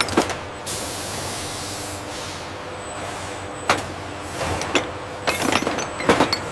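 Industrial pneumatic machinery: a hiss of compressed air being released about a second in, over a steady machine background, then a scattering of short sharp metallic clicks and clanks in the second half.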